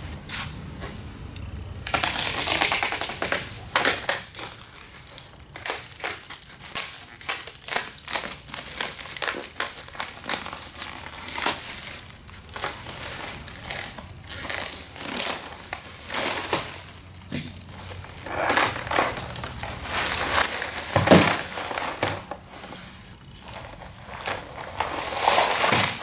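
Clear plastic wrap being pulled and crumpled off a plastic beehive bottom board, crinkling and crackling irregularly, starting about two seconds in.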